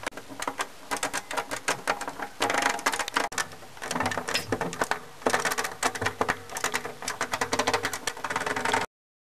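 Rapid, irregular mechanical clicking and rattling, several clicks a second, with two busier stretches, that cuts off suddenly near the end.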